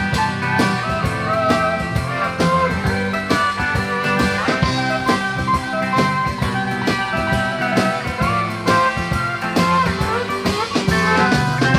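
Instrumental break of a country-rock song: a guitar lead with sliding, bent notes over bass and a steady drum beat.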